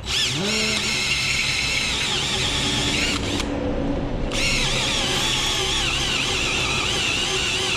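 Electric drill boring holes in metal: the motor spins up at the start and runs steadily, with a wavering high squeal from the bit. The squeal drops out for about a second, a little over three seconds in.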